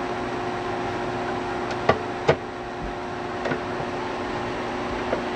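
Small knocks and clicks of hands working on wiring and fittings behind a panel, with two sharper clicks about two seconds in and fainter ones later, over a steady hum.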